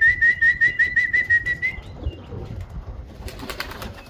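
A warbling whistle to call racing pigeons in to the loft. It wavers quickly up and down, about seven times a second, and stops a little under two seconds in. A brief clattering burst follows near the end.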